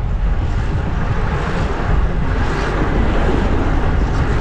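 Wind rushing over an action camera's microphone while riding a bicycle, with street traffic noise underneath; a steady, even rush.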